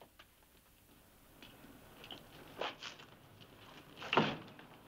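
Quiet footsteps and door sounds: a couple of light knocks about two and a half seconds in, and a louder thump near the end.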